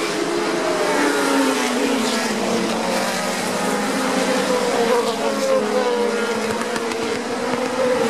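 Several 1970s Formula One cars with Cosworth DFV V8 engines racing past at high revs, their engine notes overlapping. One note drops in pitch about a second in, and others climb about halfway through as cars come closer.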